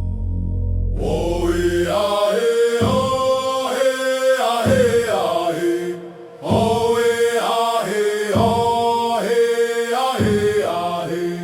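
Background music: a wordless chanted vocal melody in two phrases, with a short break about six seconds in. A low drone underneath stops about a second in.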